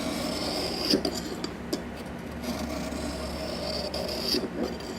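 Knife blade drawn across an Eze Lap diamond sharpener: two long, even scraping strokes with a few small clicks between them.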